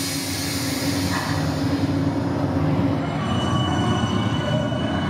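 Recorded train sound effect played over loudspeakers: a steady rail rumble and rattle, with thin high wheel-squeal tones coming in about three seconds in.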